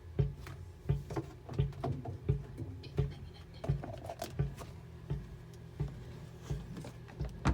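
Repeated dull low thumps, 'bon, bon', at a steady beat of about three every two seconds, from an unidentified source.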